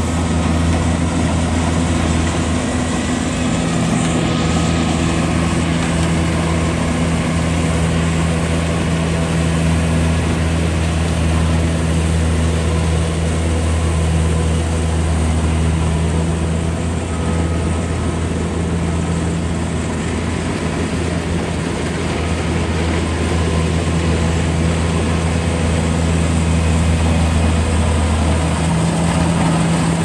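Kubota crawler combine harvester running steadily while cutting and threshing rice: a constant low engine hum over a wash of machinery noise.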